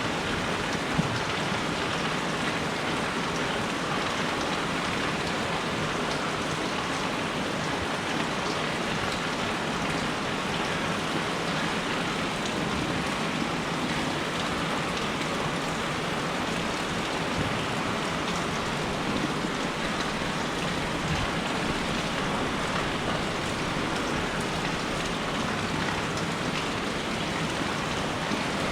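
Steady rain falling on surfaces, a dense even patter of drops.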